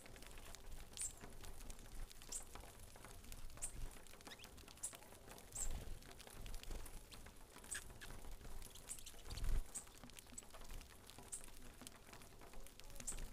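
Flock of saffron finches feeding on grain scattered over a board feeder: a faint patter of beaks pecking at the seed and board, with short high chip notes every second or so and a couple of dull thumps.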